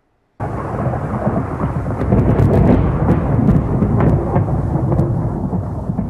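Loud thunderstorm: deep rolling thunder with rain, starting suddenly about half a second in, with sharp cracks of thunder through the middle.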